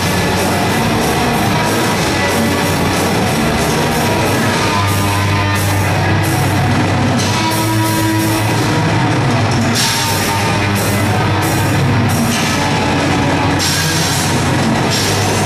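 Live heavy metal band playing loud: distorted electric guitar over a Pearl drum kit, with repeated cymbal crashes.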